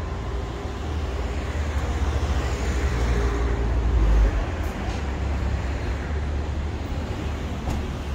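Road traffic on a city street: cars passing, with a steady low rumble, swelling to its loudest about four seconds in and then dropping off suddenly.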